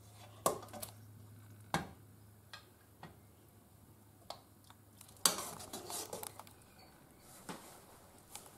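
Metal ladle knocking and scraping against the inside and rim of an aluminium stew pot while stew is ladled out: several separate sharp clinks, then a busier spell of clattering about five seconds in.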